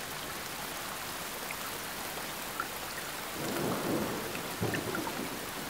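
Heavy rain falling steadily, with a low rumble of thunder swelling up about three and a half seconds in and a smaller one near the end.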